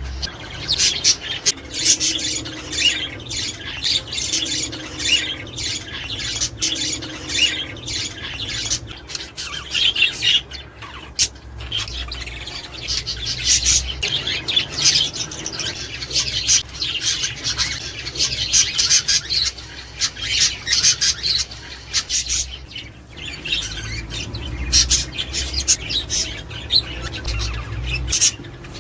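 Budgerigars chattering without pause: a dense mix of warbles, chirps and squawks with sharp clicks.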